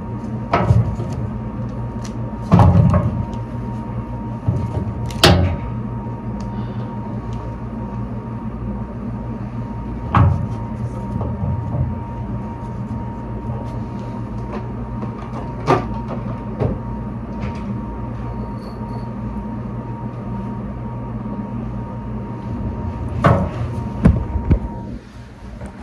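A handful of sharp knocks and clicks several seconds apart as small bottles and pens are handled and set down on a steel countertop, over a steady machine hum with a faint high whine that stops near the end.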